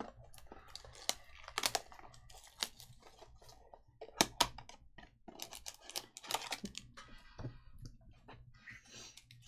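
Trading cards and packs being handled at a table: an irregular run of sharp clicks and snaps as the cards are flicked through.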